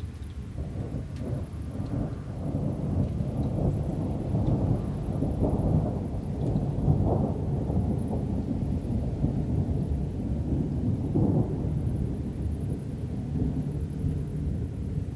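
Thunder from an approaching thunderstorm: a long, low rolling rumble that builds up about a second in and carries on with a few louder swells.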